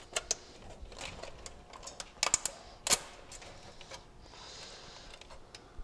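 Low-voltage control wires being handled and twisted together inside a heat pump's sheet-metal cabinet: sharp light clicks and ticks of wire and terminals against the metal, a couple just after the start and a quick cluster about two to three seconds in, then a soft rustle of the wires.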